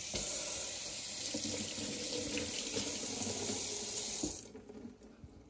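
Kitchen tap running into a stainless steel sink, the stream splashing onto a plastic container in the basin. It shuts off after about four seconds and the splashing dies away.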